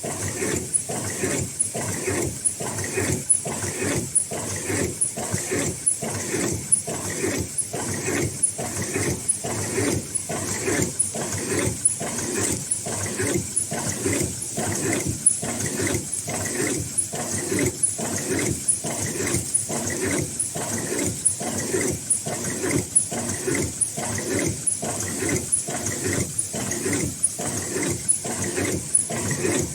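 Automatic N95 mask-making machine running at production speed: a steady, rhythmic mechanical clatter of about three strokes a second, over a thin steady high tone.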